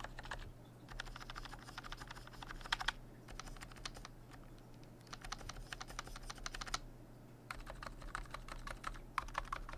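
Typing on a Type K EC electrocapacitive (Topre-style) keyboard with 42 g pink Deskeys rubber domes: quick runs of keystrokes in about four bursts with short pauses between them.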